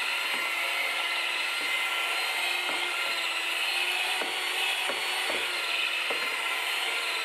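Electric hand mixer running with its dough hooks, kneading a stiff, sticky bread dough in a stainless-steel bowl: a steady motor whine with occasional knocks.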